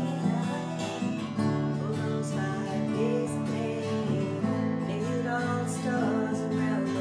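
Acoustic guitar strummed steadily, with a voice singing along.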